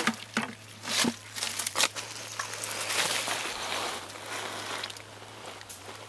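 Hands splashing and groping through shallow muddy water, with a few sharp knocks and splashes in the first two seconds and a longer swishing stir of water and mud around the middle.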